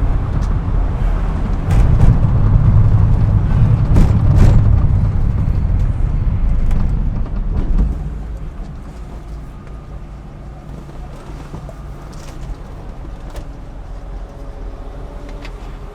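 BMW E36 M3's straight-six engine running hard and loud for about eight seconds, then the level drops suddenly and it carries on as a quieter, steady drone.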